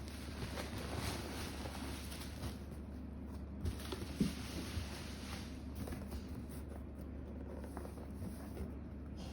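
Packaging being handled and unpacked: light rustling and scraping with small clicks and a couple of sharper knocks about four seconds in, over a steady low hum.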